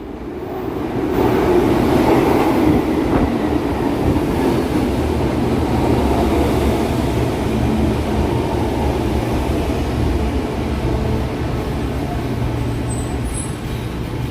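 São Paulo Metro Line 1 train running through the station. The noise of wheels on rail and its motors swells about a second in and stays loud and steady, over a low hum.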